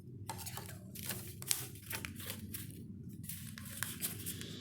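A sheet of paper being folded and creased by hand, with many short crinkles and rustles as the fold is pressed flat.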